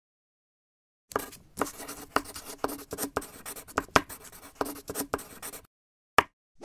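Typewriter keys striking, about ten keystrokes at an uneven pace of roughly two a second, then after a short pause two separate sharp clicks near the end.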